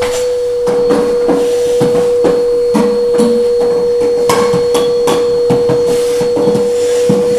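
Canister vacuum cleaner running with a steady whine. Over it come irregular knocks and clatter, a few a second, from work at the metal floor grille.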